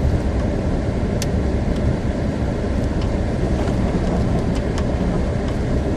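Inside a car's cabin, a steady low rumble of tyres ploughing through deep slushy snow, with snow packing into the wheels and wheel wells. A few faint sharp ticks are scattered through it.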